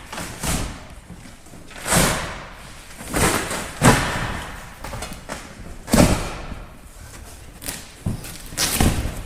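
A series of about six thumps and knocks, one every second or two, some trailing off briefly, from a motorcycle's shipping crate and cardboard packaging being handled and pulled apart.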